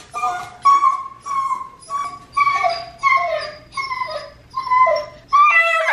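Dog whining and whimpering in a rapid run of short, high cries, about two a second, from excitement at its owner coming home.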